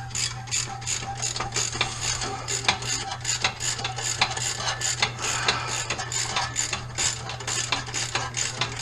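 Hand ratchet wrench clicking rapidly and steadily as a bolt is turned, with a steady low hum underneath.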